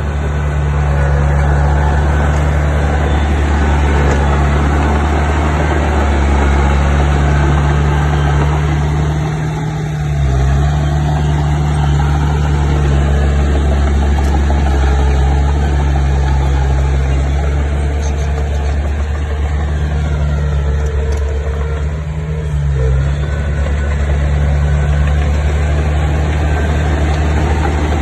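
Bulldozer's diesel engine running steadily under a low drone, its note dipping briefly twice, about ten seconds in and again a little past the twenty-second mark.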